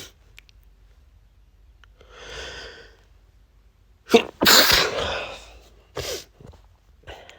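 A man's unstifled allergy sneeze. There is a drawn-in breath about two seconds in, then one loud, sudden sneeze about four seconds in, and a shorter sharp burst of breath about six seconds in.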